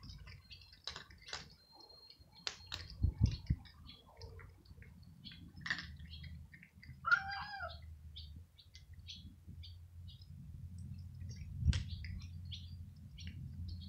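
Cats crunching dry kibble, a scatter of short clicks, with small birds chirping in the background. A few low thumps come about three seconds in, and one short meow about seven seconds in.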